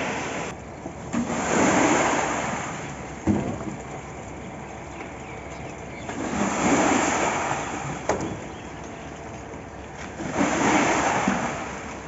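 Wet concrete sliding off tipped wheelbarrows and down a board chute into a rebar-caged foundation pit. It comes in three rushing surges of about two seconds each, with a couple of sharp knocks between them.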